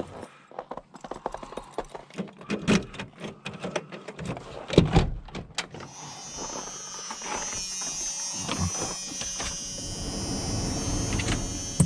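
Scattered clicks and knocks with one heavy thump about five seconds in, then a steady high electric-motor buzz that starts about six seconds in and keeps running.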